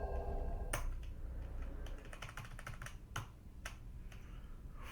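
Computer keyboard keys being pressed: one sharp click under a second in, then a quick run of key taps, then a few separate presses.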